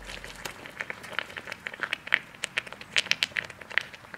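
Molten bronze pouring from a crucible into a sand mould, with irregular sharp crackles and pops, several a second, as the metal spatters and spills over the sand.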